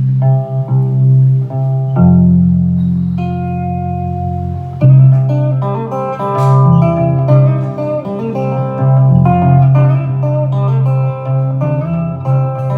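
Guitar playing the instrumental opening of a song: picked melody notes over low held bass notes.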